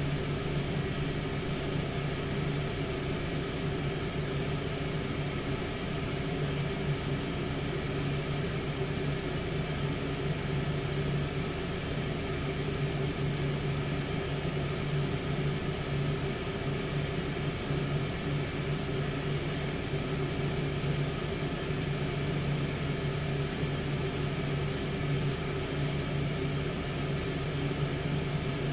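Tower air fryer oven running mid-cook at 200 °C: its convection fan gives a steady, even hum with a low drone.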